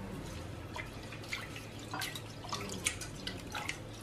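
Split lentils (moong and toor dal) being washed by hand in water in a stainless steel pressure cooker. The hand swishes and rubs the grains, making scattered small splashes and drips.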